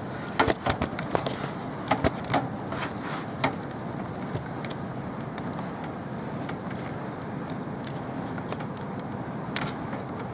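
Sharp clicks and light knocks of computer hardware being handled, many in quick succession in the first few seconds and a few more near the end, over a steady hiss.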